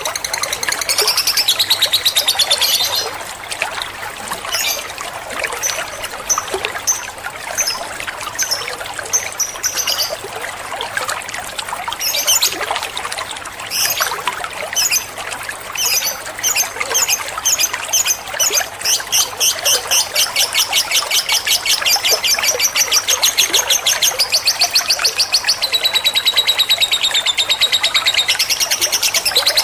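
White-rumped shama singing lovebird-style phrases: high, quick chirps, well spaced through the middle, then a fast, continuous trill of rapidly repeated notes that steps down in pitch near the end.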